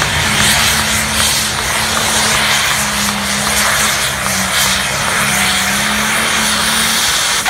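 A competition pulling tractor's engine running flat out under load during a pull, loud and steady; its pitch steps up a little early on and then holds.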